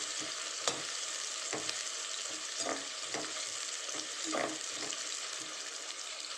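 Sliced onions and green chillies sizzling as they sauté in hot oil in an aluminium pressure cooker, stirred with a perforated steel skimmer that knocks and scrapes against the pot about once a second.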